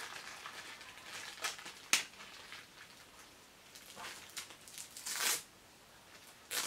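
Clear plastic packaging crinkling and rustling as small plastic action-camera mount parts are taken out and handled, with a sharp click about two seconds in, a brief louder rustle about five seconds in, and another click near the end.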